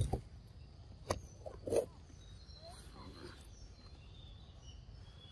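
A few short knocks and scuffs in the first two seconds from a long-tailed macaque moving right at the camera, then faint bird chirps.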